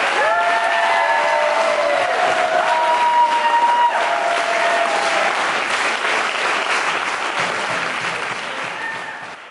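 Audience applauding, with a few voices calling out over it in the first five seconds; the applause dies away near the end.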